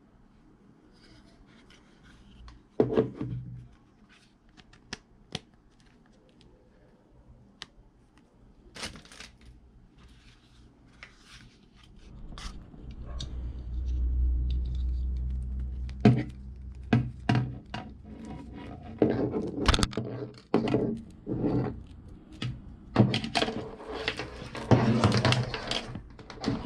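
Hands handling a Midland two-way radio and its charger's power cord: scattered plastic clicks and knocks, then rustling and scraping as the coiled adapter cord is unwound, with a brief low rumble about halfway through.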